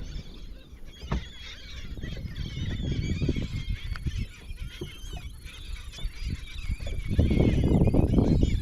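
A flock of seabirds calling over the water, many short overlapping cries. A low rushing noise swells up near the end and becomes the loudest sound.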